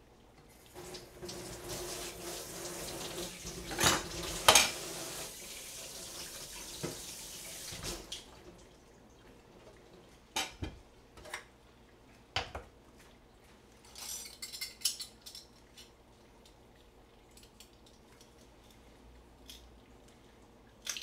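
Kitchen tap running into the sink for about seven seconds, with two sharp clanks partway through. Then scattered clinks of dishes and metal utensils being set down and picked up.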